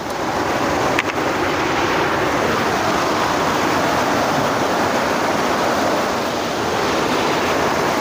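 Steady rushing of a fast mountain stream over rocks, a loud even hiss of water, with a single short knock about a second in.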